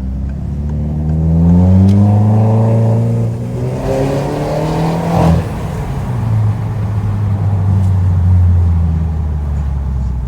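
Citroën DS5's turbocharged 1.6 THP four-cylinder, breathing through a downpipe and a straight pipe with no rear silencer, accelerating hard with a loud, shrill exhaust note. The pitch climbs for about three seconds, then drops at a gearshift around the middle with a brief burst of noise, and the engine pulls on more steadily after it.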